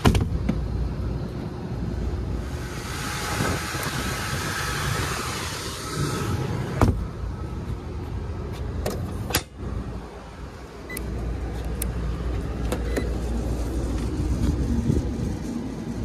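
Sheet-metal access door of a rooftop air-conditioning unit being handled and closed: a sharp metal knock at the start, more knocks about seven and nine seconds in, and scattered small clicks of panel and latch. Under them runs a steady low rumble.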